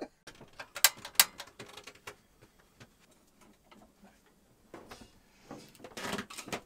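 Scattered sharp clicks and light knocks of small objects being handled, the two loudest about a second in. Near the end come more small knocks and rustling as a glass coffee jar's lid is worked open.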